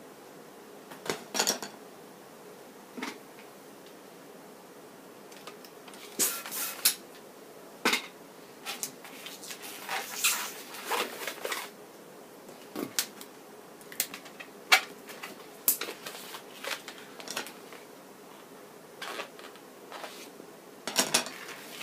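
Latex twisting balloon being handled and twisted by hand: scattered short squeaks and rubbing clicks of the rubber, a few at a time with quiet gaps between, most of them in the middle of the stretch.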